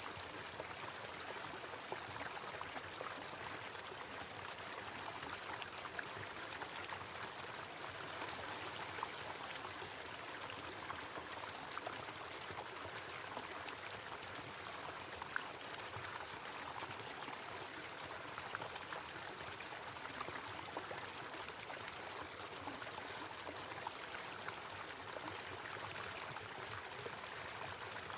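Small waterfall: a steady, even rush of falling and splashing water, with small droplet ticks scattered through it.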